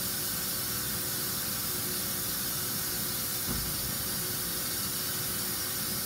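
DMG DMC 1035 ECO CNC vertical mill running its spindle with a small tool at the workpiece: a steady high hiss over a faint steady hum, with a soft low thump about three and a half seconds in.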